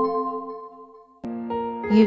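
Background music: a sustained keyboard chord fading away, then a new chord struck about a second and a quarter in.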